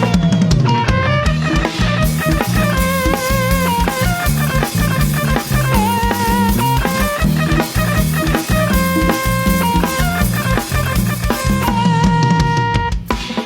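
Thai brass band (trae wong) playing live: a drum kit keeps a steady beat under a moving bass line, with held melody notes that waver with vibrato.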